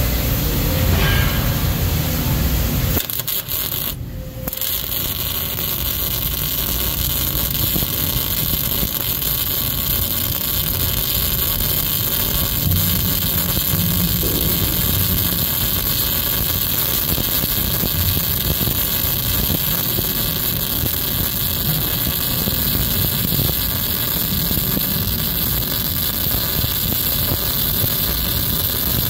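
Wire-feed (MIG) welding arc running steadily as a layer of a multi-pass weld is laid. Before it, other steady shop noise, then a brief drop in the sound about four seconds in.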